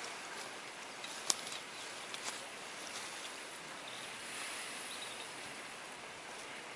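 A sharp click about a second in, then a couple of lighter clicks, as an arrow's nock is snapped onto a barebow recurve's bowstring, over a faint, steady outdoor hiss.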